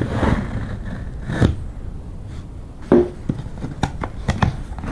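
Cardboard boxes being handled: the flaps and sides scrape and rustle, with a louder scrape about three seconds in and a run of short scrapes and taps after about four seconds.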